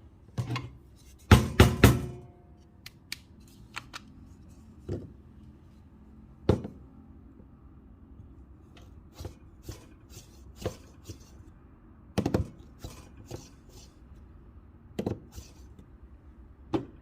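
Espresso tools and a portafilter being handled on a counter: scattered knocks and clicks, loudest a quick run of three sharp knocks about a second and a half in.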